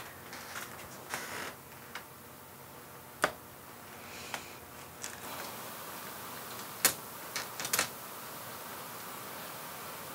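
A few scattered light clicks and taps of small objects being handled on a desk, two sharper ones about three and seven seconds in, over a faint steady hiss that grows slightly louder about halfway through.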